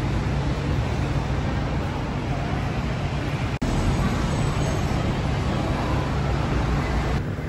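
Steady street ambience: a low traffic rumble under an even hiss, briefly cutting out about three and a half seconds in.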